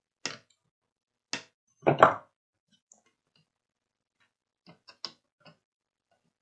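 Side cutters snipping the LED leads off a soldered circuit board: a few sharp clicks in the first two seconds. Near the end come fainter light clicks and taps as the board is handled in its holder.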